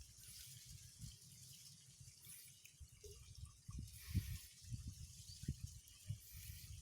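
Faint outdoor ambience by water: soft, irregular low bumps and rumbles, with short high-pitched chirps about every two seconds.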